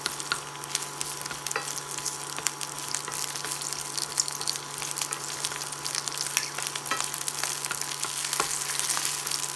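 Ginger slices and spring onion sizzling in a little oil in a stainless-steel frying pan, stirred with a wooden spoon that clicks and scrapes against the pan. A steady low hum runs underneath.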